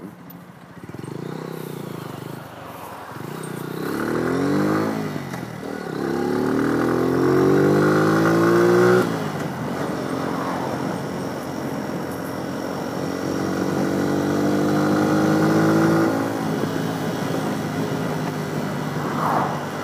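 Motorcycle engine accelerating through the gears, its pitch climbing and then dropping at three gear changes before it eases off near the end, with wind rush on the helmet microphone.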